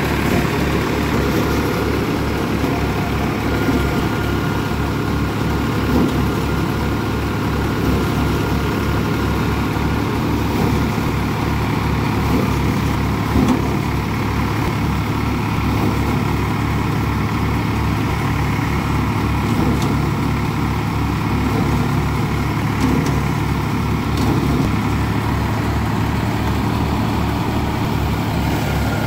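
Tractor diesel engine running steadily under load with a regular low pulse, driving a paddy thresher whose machinery adds a thin steady whine.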